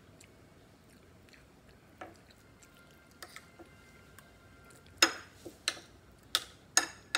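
Metal spoon clinking and scraping against a ceramic bowl as food is scooped up. A few faint clicks come first, then several sharp clinks in the last two seconds.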